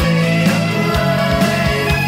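Background rock music with a steady drum beat under sustained instrument notes.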